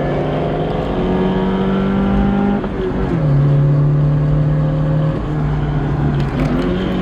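Car engine running hard, its note climbing slowly, dropping sharply about three seconds in, then holding steady with small dips near the end.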